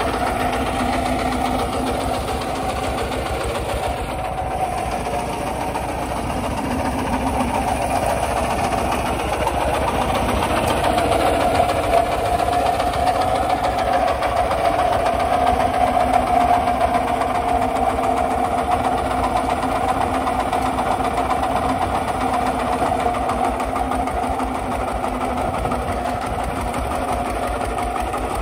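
Kubota walking tractor's RT140 single-cylinder diesel engine running steadily under load while pulling a plough through dry soil, growing slightly louder about halfway through.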